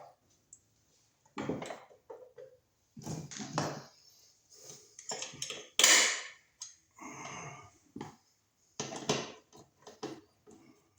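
Irregular clicks, scrapes and rustles of stiff house wiring and a receptacle being handled and folded back into an electrical box, with the loudest scrape about six seconds in.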